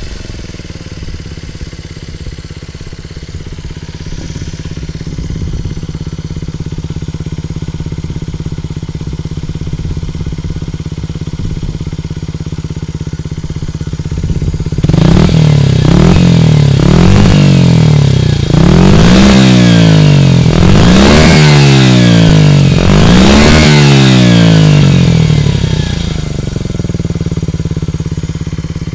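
Honda R&P (CY50) 50cc four-stroke single running through a one-off exhaust, the stock header pipe joined to a stainless aftermarket silencer. It idles steadily for about half the time, then is revved in a string of throttle blips that each rise and fall, the last few longer, before settling back to idle near the end.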